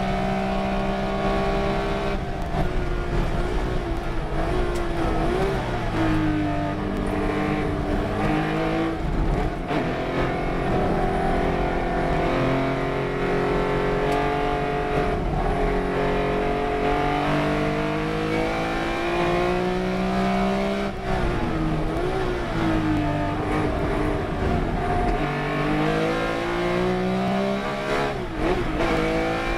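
Race car engine running hard on a circuit: the revs climb steadily under acceleration, then drop sharply with short wobbles several times as the car brakes and changes down for corners.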